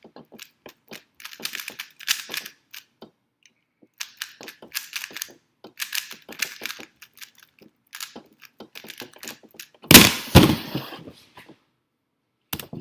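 Rubik's cube being turned fast, plastic layers clicking in quick flurries with short pauses between them. A much louder clatter comes about ten seconds in.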